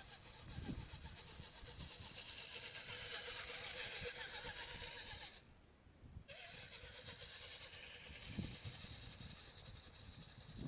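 A 1/10-scale RC rock crawler running along a dirt trail, its motor and gears whining under a steady hiss of outdoor air. The sound cuts out for about a second midway, then picks up again.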